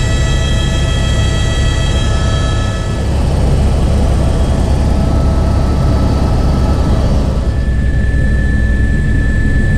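Helicopter cabin noise in flight: a loud, steady low drone from the rotor and engine, with a constant high-pitched engine whine over it.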